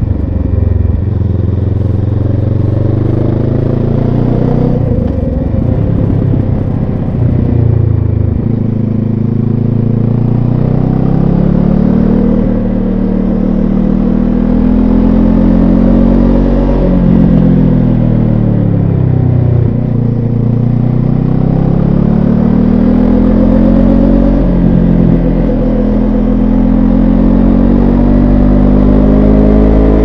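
Benelli TRK 702 X's parallel-twin engine under way, its revs climbing and dropping several times as the bike accelerates and eases off through curves.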